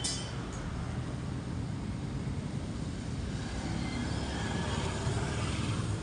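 Steady background rumble and hiss like street traffic, with a short click right at the start.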